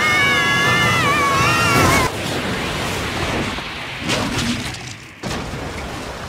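A child's high, drawn-out cry over rushing water, breaking off abruptly about two seconds in. The water rushes on after it, with two sudden thuds near four and five seconds in.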